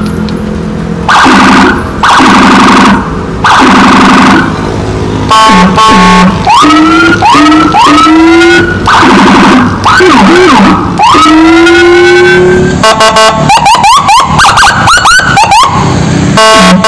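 Whelen electronic siren switched through a string of its tones in quick succession: short rising whoops, steady horn-like blasts, and, from about three quarters of the way in, a rapid stuttering warble.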